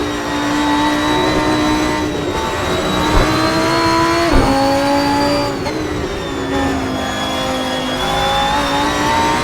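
Lamborghini Huracán Performante's naturally aspirated V10 pulling hard, heard onboard. Its note climbs, then drops suddenly with a sharp crack about four seconds in as it shifts up a gear, dips again about halfway, and climbs once more near the end.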